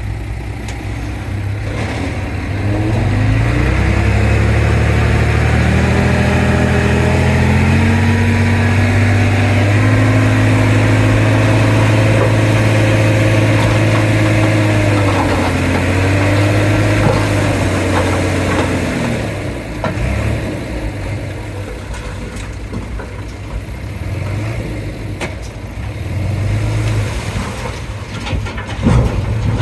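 Komatsu D31P crawler bulldozer's diesel engine rising in speed and working hard for about fifteen seconds, its pitch wavering and dipping as the load changes. It then drops back to a lower speed, and a few sharp knocks come near the end.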